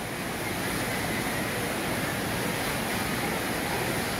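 Steady rushing noise of water-park ambience, water running down the waterslides and through the pools.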